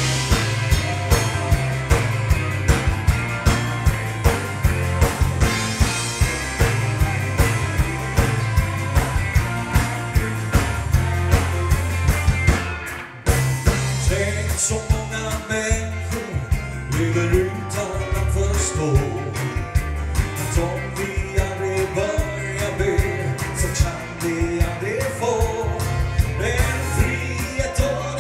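Band music with a drum kit keeping a steady beat and singing over it. The music dips out for a moment about 13 seconds in, then carries on with the vocal line more prominent.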